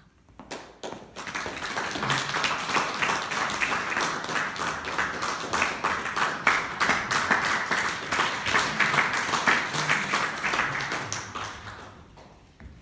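Audience applauding: a few first claps about half a second in, quickly swelling into steady applause, then dying away near the end.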